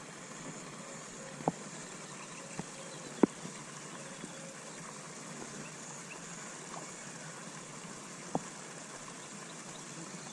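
Steady trickle of running water, broken by a few short sharp clicks, the loudest about three seconds in.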